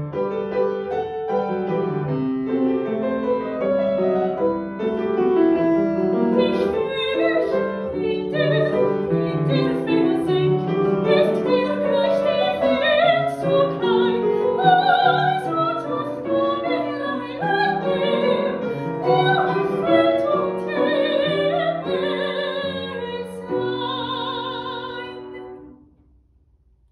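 A woman sings a classical vocal piece in trained operatic style with a wide vibrato, accompanied on a Samick grand piano. Near the end she holds a long final note over piano chords, then the music stops.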